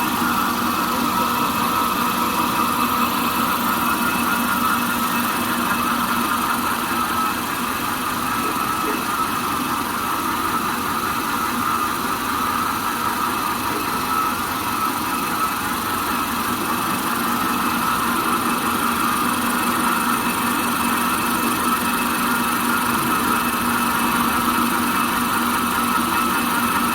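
Jumbo-roll toilet paper slitting machine running steadily: a constant mechanical hum with a higher steady whine over it.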